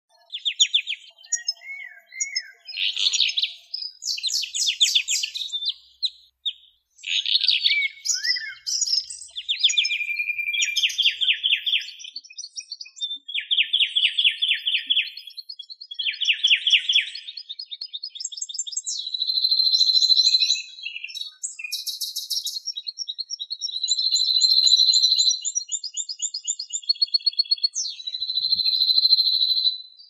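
Songbird song: a continuous run of varied high phrases, fast trills and quick repeated notes, with several longer held trills in the second half.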